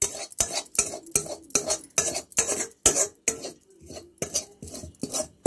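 A metal spoon scraping and clinking against a steel kadhai and plate while cooked moringa-leaf fry is scooped out. It comes in quick strokes, about three to four a second, and eases off briefly a little before four seconds in.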